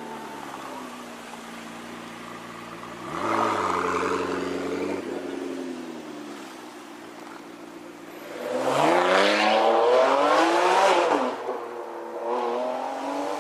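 Supercar engine running, then revving up sharply about three seconds in and fading away. A louder acceleration follows later, its pitch climbing for a couple of seconds before dropping off, with a shorter rev near the end.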